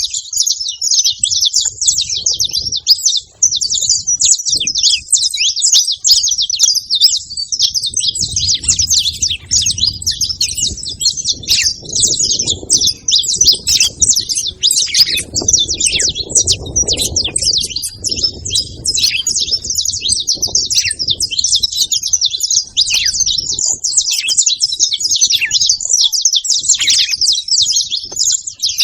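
Several saffron finches chirping and singing together in a dense, unbroken stream of rapid high chirps.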